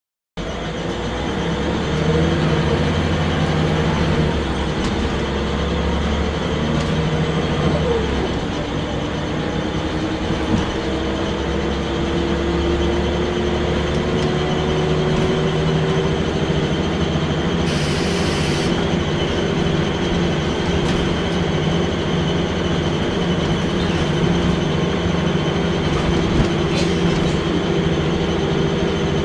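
Scania L94UB single-decker bus heard from inside the passenger saloon while under way: steady engine and running noise with a low pulsing, and a whine that slowly rises in pitch as it gathers speed. A brief high hiss sounds about eighteen seconds in.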